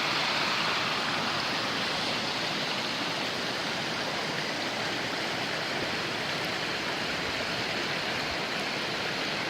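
Waterfall on a mountain stream: a steady rush of falling water that grows a little fainter over the first few seconds, then holds.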